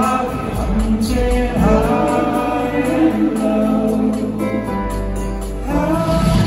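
Live pop band playing: a male lead voice singing over acoustic guitar and keyboard, in a large hall. The music changes abruptly near the end.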